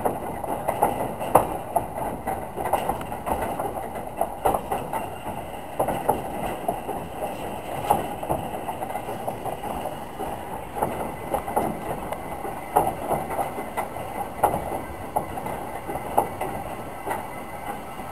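Small steam tank locomotive running along the line, heard from its footplate: a steady rumble with frequent short knocks and clanks from the wheels and running gear.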